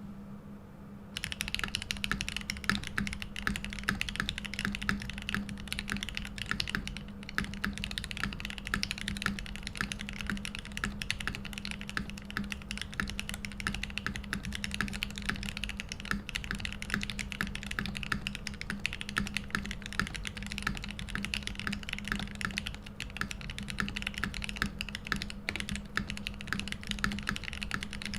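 Fast, continuous typing on a Mode80 custom mechanical keyboard with lubed Gateron Oil King switches in a brass plate and OTC Modo Light keycaps, starting about a second in. A steady low hum sits underneath.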